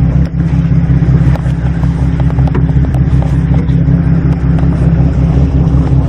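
Boat engine running with a steady low hum, with scattered knocks and rubbing from the camera being handled close to the microphone.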